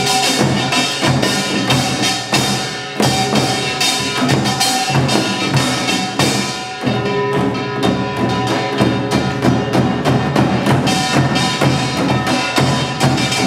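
Samulnori percussion ensemble playing: janggu hourglass drums and buk barrel drums struck in a fast, dense rhythm, with gongs ringing underneath.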